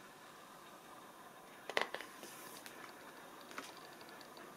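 A picture book's page being turned: a brief faint rustle and soft clicks of paper about two seconds in, with a lighter tick a little later, against a quiet room.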